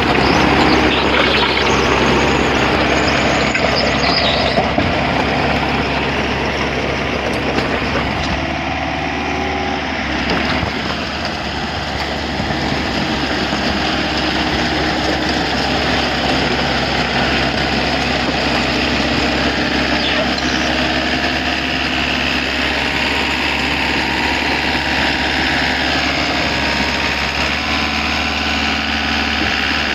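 A heavy engine running steadily with a continuous low hum and mechanical noise, dipping slightly in level about a third of the way in.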